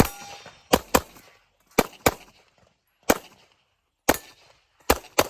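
Nine 9mm pistol shots from a Glock 34 Gen 5 fired rapidly during a competition stage, several in quick pairs about a quarter second apart, each shot with a short echo.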